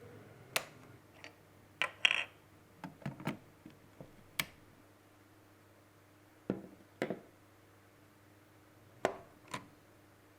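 Irregular sharp clicks and knocks of camera rig parts being handled and fitted together, about a dozen in all, with a short scrape about two seconds in.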